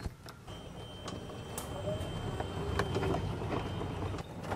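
Golf cart pulling away and driving on a dirt track: a low rumble of the running gear that grows steadily louder, with a thin steady high whine over it and a few light clicks and rattles.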